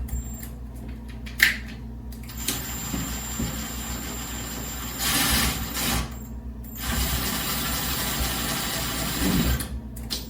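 Power drill driving a doorknob's machine screw: a click, then the motor runs steadily for about three and a half seconds, stops briefly, and runs again for about three seconds with a steady high whine.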